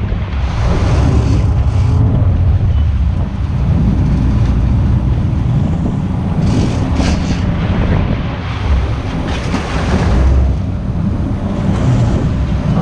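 Sportfishing boat's engines running with churning water at the stern and wind buffeting the microphone; a couple of brief hissing surges of water come through over the steady rumble.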